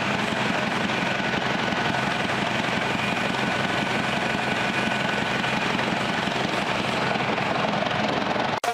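Car engine running steadily at idle with its air intake removed, sounding a little rough.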